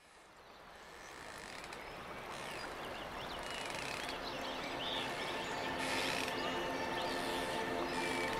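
Birds chirping in quick, short rising notes over a steady background rush, fading in from silence. Soft held music chords come in about halfway through and grow louder.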